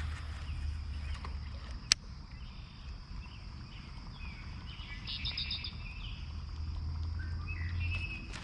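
Outdoor pond ambience: a steady low rumble with a single sharp click about two seconds in, and a short rapid run of high chirping ticks about five seconds in.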